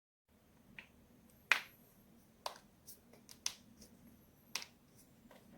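Spinal joints in the neck and back cracking as they are forcibly twisted: a series of about eight sharp pops, unevenly spaced, the loudest about a second and a half in and another strong one near the end.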